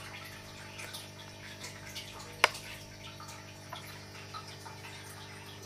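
Faint steady electrical hum with scattered small ticks, and one sharp click about two and a half seconds in.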